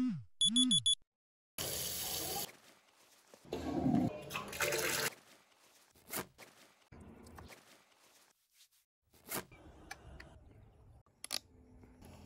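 A smartphone alarm's chirping ringtone, cut off about a second in. Then come short bursts of running water, and scattered clicks and rustles of motorcycle riding gear such as a knee guard strap being fastened.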